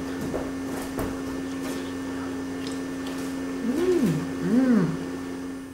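A steady mechanical hum, with a light click of a fork on a plate about a second in and two short hummed 'mm' sounds from the eater near the end.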